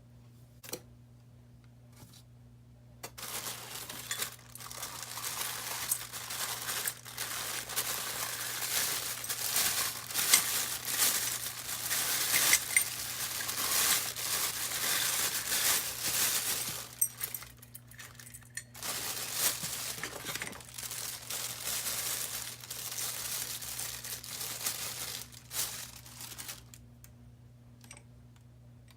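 Packing material crinkling and rustling as it is handled, in two long stretches with a short pause between, over a steady low hum.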